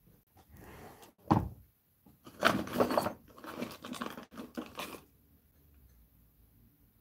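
Rustling and crackling of hands working through hair close to the microphone. It comes in uneven bursts for about four and a half seconds, sharpest about a second and a half in and again around two and a half to three seconds, then stops.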